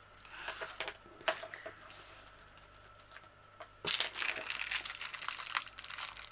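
Plastic packaging crinkling as small items are handled: a few scattered crackles, a short lull, then steady crinkling from about four seconds in.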